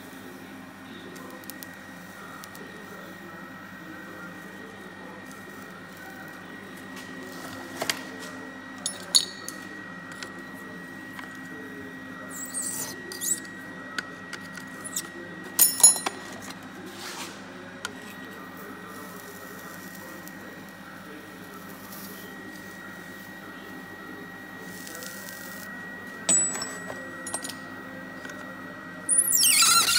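An induction heater hums steadily on standby with a constant faint high tone, and metal tools clink a few times. Near the end a loud high-pitched squeal starts as the heater's coil is switched on.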